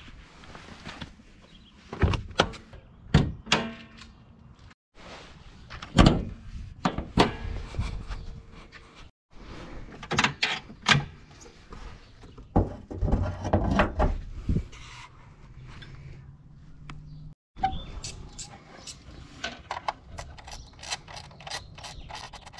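Clunks, knocks and clicks of hands and tools working on a car's engine, in short clips joined by sudden cuts, ending in a quick run of small clicks.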